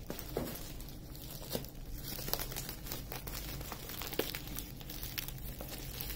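Bubble-wrap packaging bound with yellow tape being pulled open and crumpled by hand: irregular crinkling and crackling with some tearing.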